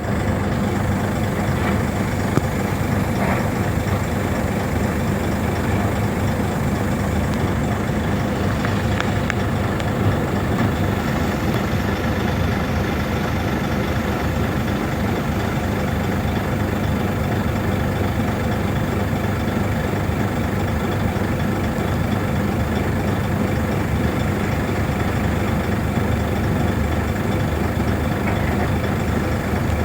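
Heavy diesel engines of a Komatsu PC500 excavator and a Volvo dump truck running steadily during loading, a constant low drone with a few faint knocks.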